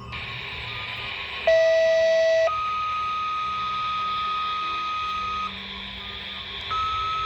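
Radio scanner receiving two-tone sequential paging tones that activate the sirens, over a hiss of radio static. A loud low tone for about a second is followed by a higher tone held for about three seconds, and a second pair of tones starts near the end.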